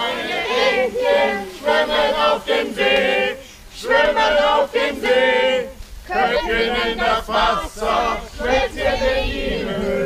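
A group of voices singing a tune together in held phrases, with short breaks between them.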